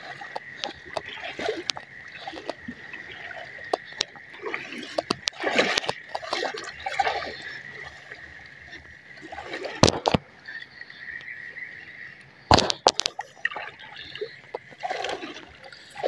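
Water lapping and splashing while a spinning rod and reel are worked through a lure retrieve, over a steady faint whine. Two sharp knocks come about ten and twelve and a half seconds in.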